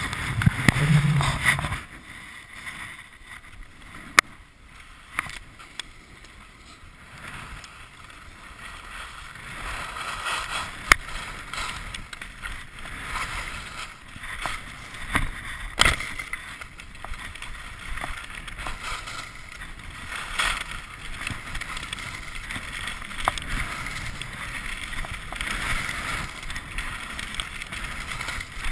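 Skis sliding and scraping over packed snow on a downhill run, with wind on the microphone. The hiss rises and falls in level, and a few sharp knocks stand out.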